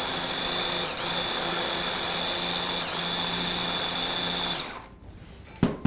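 Hand blender with a mini chopper bowl running steadily, its blades chopping cooked ripe plantain moistened with a little cooking water. The motor's whine dips briefly twice, then it stops about four and a half seconds in, and a single knock follows near the end.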